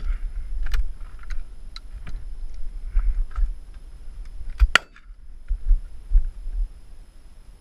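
Wind buffeting the microphone, then a single loud shotgun shot a little under five seconds in.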